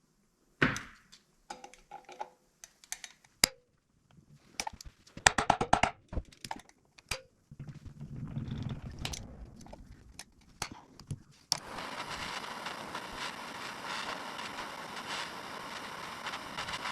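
Hand tools working a broken bolt out of an AC compressor: scattered metallic clicks, taps and scrapes, with a quick run of clicks about five seconds in. About eleven and a half seconds in, a steady rushing noise starts suddenly.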